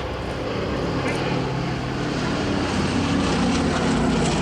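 Boeing B-17G Flying Fortress's four Wright Cyclone radial piston engines and propellers droning in flight, growing steadily louder.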